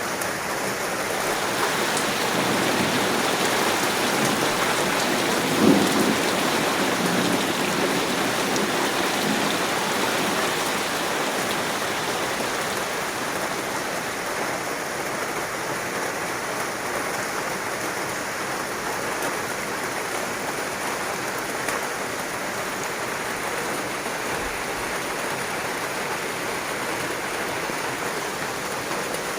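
Heavy rain falling steadily. A low rumble of thunder swells in the first ten seconds, loudest with a sharp peak about six seconds in.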